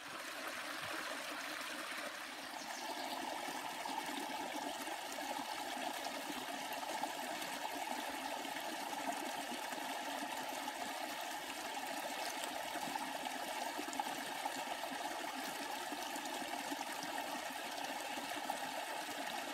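Creek water running over a small rocky cascade: a steady rush of water.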